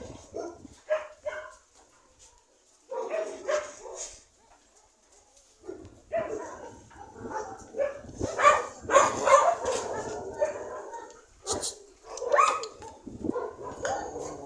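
Several dogs barking and yipping in short, irregular bouts, with brief lulls, loudest and busiest a little past the middle.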